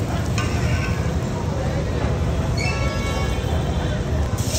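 Background music with a voice over a steady low rumble. Near the end a loud hiss of oil sizzling on the iron tawa cuts in.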